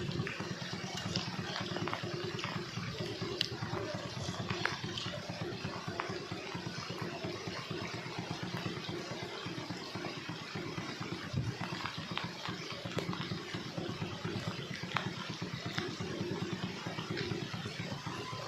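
A small engine running steadily throughout, with scattered light clicks and knocks over it.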